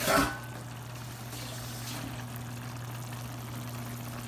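Pot of chicken soup bubbling on the stove: a steady hiss under a constant low hum, after a brief louder sound at the very start.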